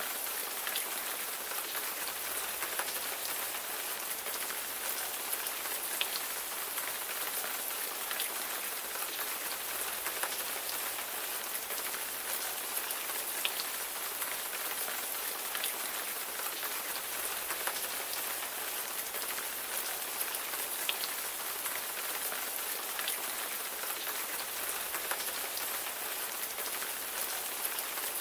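Steady rain falling: an even hiss of drops with scattered individual drop ticks, unchanging throughout.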